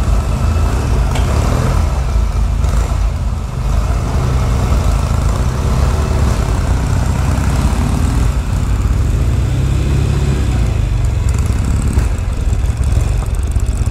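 Norton Commando parallel-twin engine idling steadily just after being kick-started.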